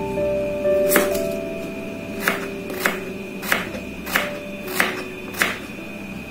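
A kitchen knife chopping green beans on a cutting board: about seven sharp chops, the first about a second in and the rest evenly, roughly two-thirds of a second apart. Background music plays underneath.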